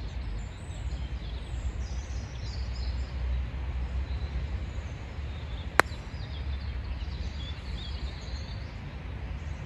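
A single sharp click of a putter striking a golf ball, about six seconds in, over a steady low outdoor rumble with birds chirping.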